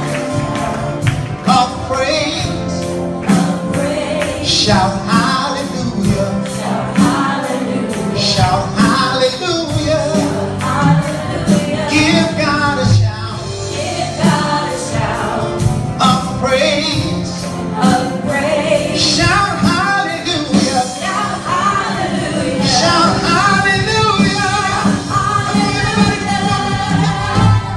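A gospel worship song sung live by several male and female singers on microphones over a steady beat, amplified in a large hall.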